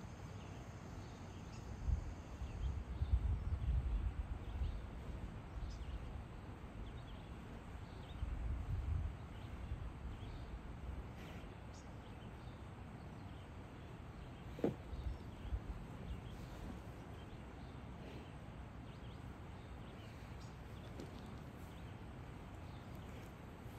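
Outdoor ambience with faint insect and bird ticks, broken by low rumbling about two to five seconds in and again around eight seconds, and a single sharp knock about fifteen seconds in.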